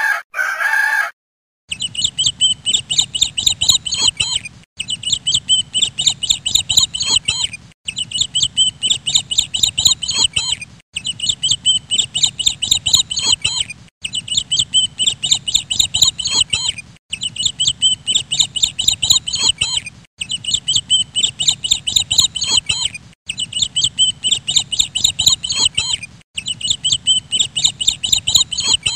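A rooster crowing, which cuts off about a second in, then chicks peeping rapidly and continuously. The same stretch of about three seconds repeats again and again with brief breaks between.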